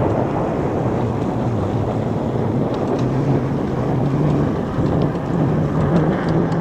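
Wind rushing over the microphone of an electric bike on the move: a steady low rumble with a faint wavering hum underneath.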